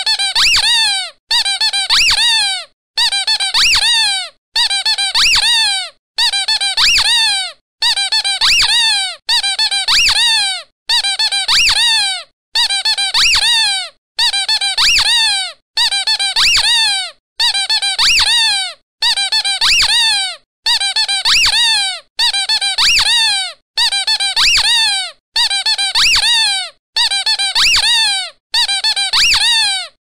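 Rubber balloon squeaking, looped as a ringtone: the same burst of high, falling squeals about a second and a half long repeats over and over with a short gap between each.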